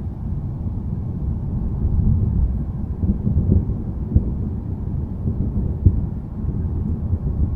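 Low, uneven thunderstorm rumble, with two brief sharp knocks about four and six seconds in.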